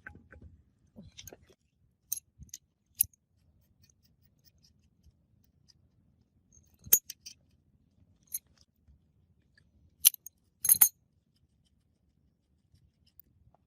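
Scattered sharp metallic clicks and clinks of tools and parts being handled during work on a rusty diesel engine. There are a handful of separate strikes with quiet between them, the loudest about halfway through and a close pair later on.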